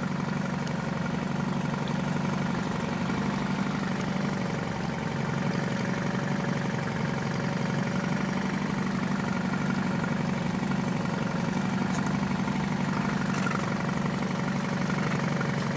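Boat motor running steadily, an even low hum that holds the same pitch throughout.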